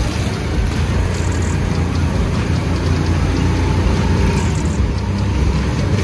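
Drift kart running and sliding around the track, heard from on board: a steady low rumble with a noisy hiss over it.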